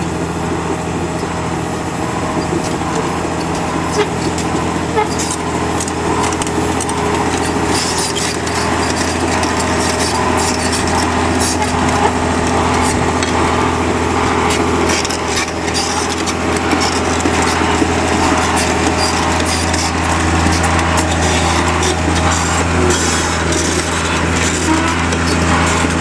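A steady, loud low engine hum with a constant pitch, with scattered short clicks and scrapes over it.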